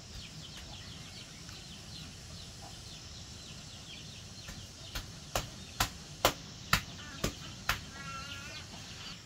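Small birds chirping steadily in the background, broken about halfway through by seven sharp knocks, roughly two a second. Near the end a chicken clucks briefly.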